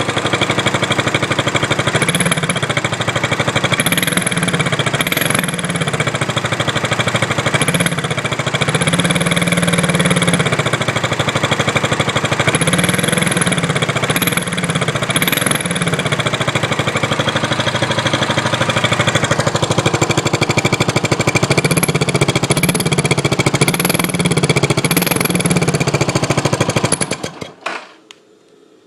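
Suzuki S40's single-cylinder engine running and being blipped repeatedly, with a high whine that rises and falls with each rev; the owner does not know its cause. The engine shuts off near the end.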